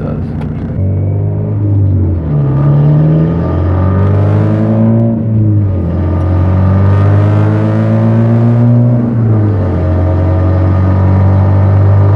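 Car engine and aftermarket exhaust with an integrated cutout, running loud under acceleration. The pitch climbs steadily, drops back sharply about five seconds in and again about nine seconds in, as at gear changes, then holds fairly steady near the end.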